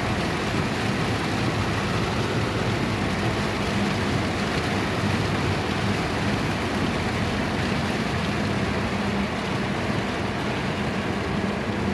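A car driving in heavy rain: steady rain and road noise with a low engine hum underneath.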